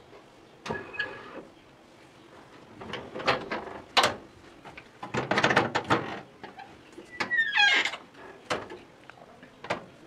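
A homemade sliding door lock and door working: sharp clicks and bursts of metallic rattling as the bolt is driven and the door and its hanging padlock shake. There is a brief high falling squeak about seven seconds in.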